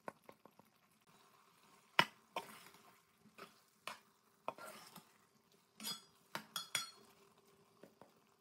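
Metal spoon stirring minced beef keema in a metal pot, clinking and scraping against the pot's side in scattered light knocks. The loudest knock comes about two seconds in, and there is a quick run of three clicks a little over two-thirds of the way through.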